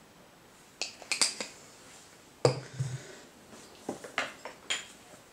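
Glass perfume bottles set down on and picked up from a table: a series of short clicks and clinks, the loudest a knock with a dull thud about two and a half seconds in.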